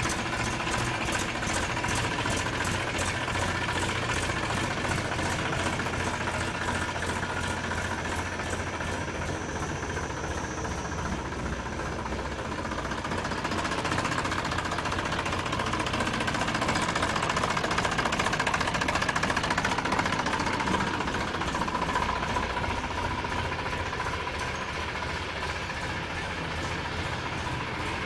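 Massey Ferguson 5245 DI tractor's three-cylinder diesel engine running with a steady, even knock, growing somewhat louder for a few seconds past the middle.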